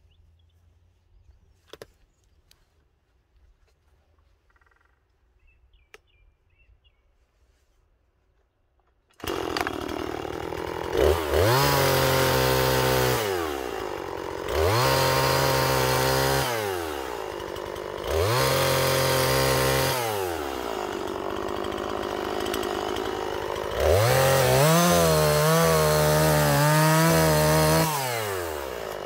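Near silence for about the first nine seconds, with a few faint clicks. Then a Husqvarna 340 two-stroke chainsaw comes in suddenly, revving up to full throttle and holding there while cutting through a log several times, dropping back between cuts.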